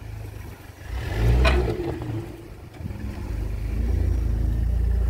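An off-road 4x4's engine revs up and eases off, with a brief sharp knock about a second and a half in. It then settles into a steady, louder low rumble under load.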